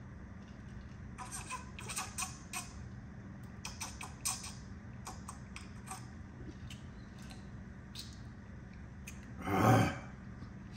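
A man drinking in gulps from a stainless steel tumbler: a run of short swallowing clicks over a steady low hum, then one loud, short throat sound near the end as he lowers the tumbler.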